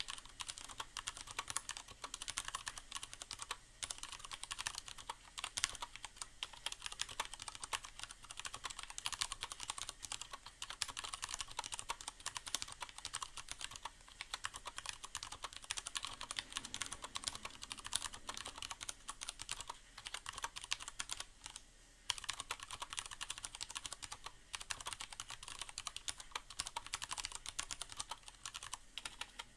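Steady, rapid typing on a Leopold FC750R mechanical keyboard with Cherry MX Brown tactile switches and a sound-absorbing pad inside the case: a dense run of keystroke clicks, broken by a few short pauses.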